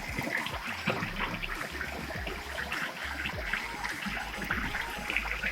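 Waterfall stream water running and splashing steadily.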